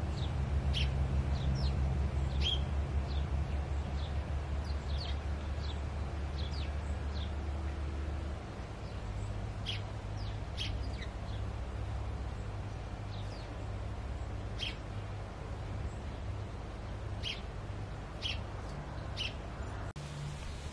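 Garden birds chirping, short high calls scattered throughout, over a steady low hum that drops in level about eight seconds in.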